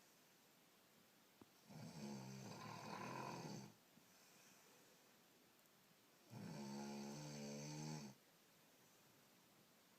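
A woman snoring: two snores, each about two seconds long, with quiet pauses of several seconds between them.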